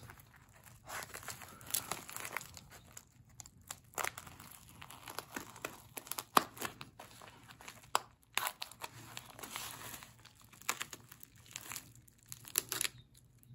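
Plastic bubble mailer crinkling and crackling as it is handled and slit open along its sealed edge with a utility knife, in irregular short rustles and clicks.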